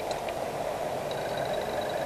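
Car driving slowly, steady engine and tyre noise heard inside the cabin, with a faint high whine in the background.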